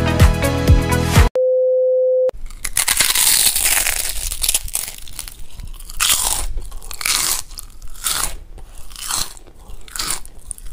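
Intro music ends about a second in, followed by a steady beep lasting about a second. Then come crunchy bites and chewing of food close to the microphone, in irregular crackly bursts, with a second beep starting right at the end.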